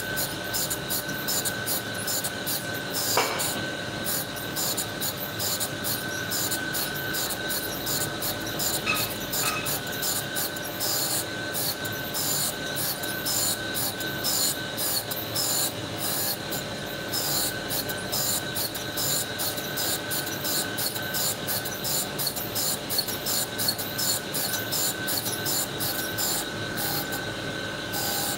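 Tool and cutter grinder's cup wheel running with a steady whine while a 45° chamfer bit is ground against it, a continuous hissing grind with rapid, irregular scratching as the bit is turned against the wheel. A single click about three seconds in.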